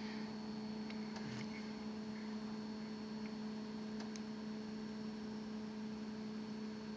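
Steady low electrical hum with a fainter high whine over a soft hiss, and a few faint ticks.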